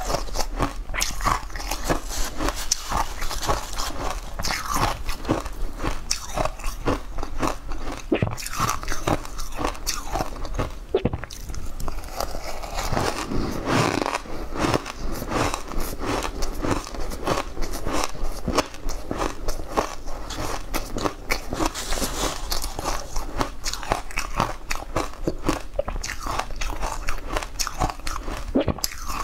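Close-miked crunching and chewing as spoonfuls of crisp white chunks dusted with green powder are bitten and eaten, a dense run of crisp crunches throughout.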